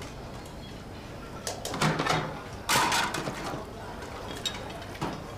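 Plates clinking and clattering in a stainless-steel kitchen sink during dishwashing: a run of knocks about two seconds in, the loudest clatter about a second later, then a couple of single clicks near the end.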